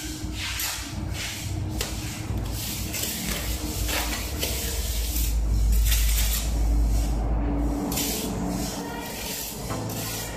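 Steel plastering trowel scraping over wet cement plaster on a brick wall, in repeated sweeping strokes about once a second.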